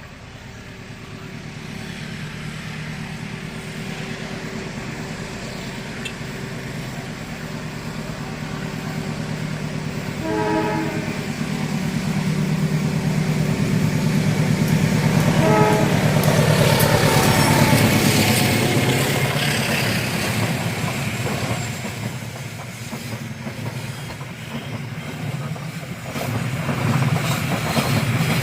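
Diesel train approaching and passing a railway level crossing: a low engine drone builds up, the horn sounds in two short bursts about ten and fifteen seconds in, then the rush of wheels on rails is loudest as the train goes by and eases off.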